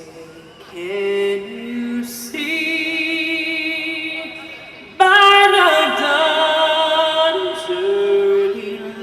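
A woman singing slowly in long held notes. She becomes much louder about halfway through, with a wavering vibrato on the held notes.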